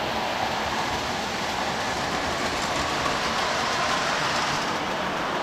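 Lionel electric toy train running on its track, a steady whirring rattle of motor and wheels on the rails.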